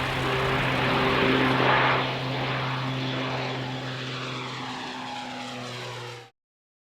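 Propeller aircraft engine running steadily, growing louder to a peak about two seconds in and then fading, as when the plane passes by. The sound cuts off suddenly near the end.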